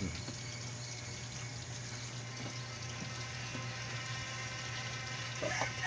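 Steady hiss of food cooking on a stove, with a constant low hum underneath. A brief louder sound cuts in near the end.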